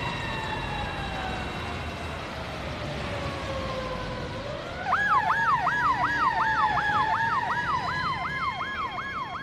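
Police car siren: a long tone slowly falls through the first half, then from about five seconds in the siren yelps rapidly, about three rising-and-falling sweeps a second, over a slower wailing tone.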